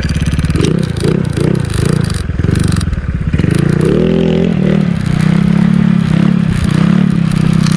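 Motorcycle engine running, its pitch rising and falling with the revs through the first half and then holding steadier.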